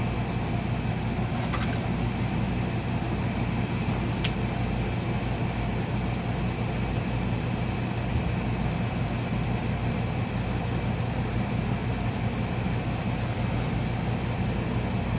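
A steady low mechanical hum, even throughout, with a couple of faint small clicks from parts being handled.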